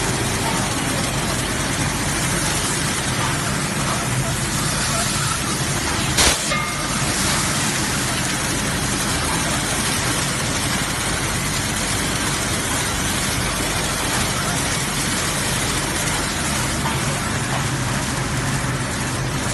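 Steady mechanical din of a running chocolate packing line and its factory hall: a low hum under an even clatter-and-hiss of the conveyors and wrapping mechanism, with one sharp knock about six seconds in.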